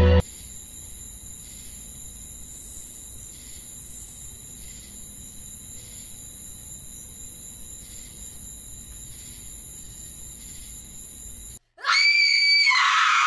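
Steady hiss, then about twelve seconds in a girl screams loudly and high-pitched for about two seconds, the scream falling in pitch as it ends.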